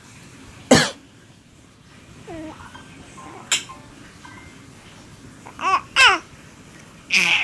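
An adult coughing, sharply about a second in and again more briefly midway, with a baby answering in babbling and short, high-pitched laughing squeals, two close together near the end.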